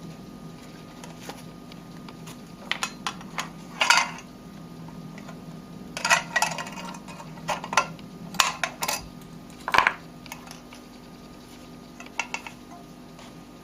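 Book safe being handled: a scattered run of light clicks, clinks and short scrapes from its hidden compartment being worked, over a steady low hum.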